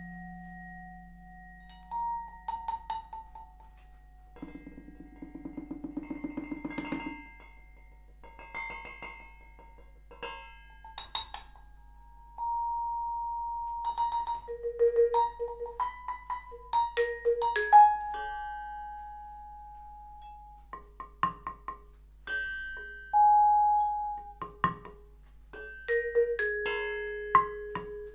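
Improvised vibraphone playing on a Yamaha vibraphone: single mallet strokes on metal bars, many left ringing as long held tones, with scattered notes and short quick flurries. About four seconds in comes a fast run of light rapid strokes at a lower pitch lasting about three seconds.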